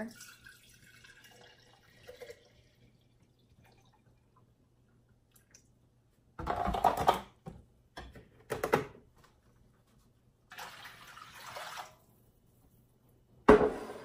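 White vinegar being handled and poured for a pickle brine: short clunks of a glass mason jar and plastic jug, a soft pour of liquid, and one sharp knock near the end.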